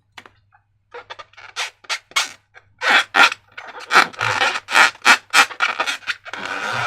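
Slime being squeezed and worked by hand, giving an irregular run of short wet squelches and crackles that come faster and louder from about three seconds in.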